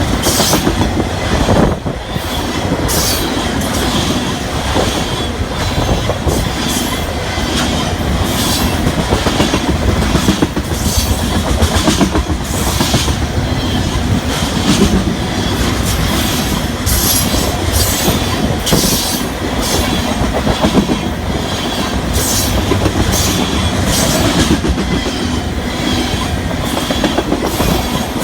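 Loaded crude oil tank cars of a freight train rolling past at speed, the wheels clacking over rail joints in irregular clicks above a steady rumble.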